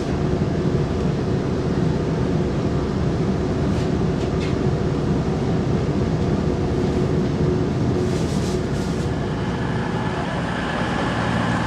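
Passenger train running, heard from inside the carriage: a steady rumble of wheels and engine with a few faint ticks, and a steady whine coming in near the end.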